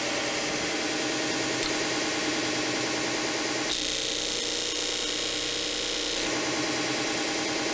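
Disc sander motor running steadily. From about three and a half seconds in until just past six seconds, the end of a padauk piece is pressed against the spinning abrasive disc, adding a hissing grind.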